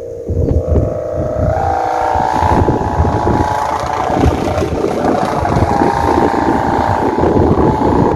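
A kite's hummer droning steadily in strong wind, its pitch stepping up about a second and a half in and shifting a little as the wind changes. Heavy wind buffeting on the microphone runs underneath.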